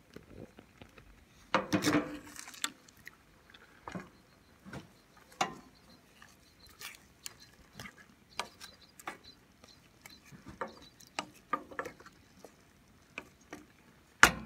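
Wooden spoon stirring berries in a stainless steel pot: irregular knocks and scrapes of the spoon against the pot, loudest about two seconds in, with quick sharp taps starting right at the end.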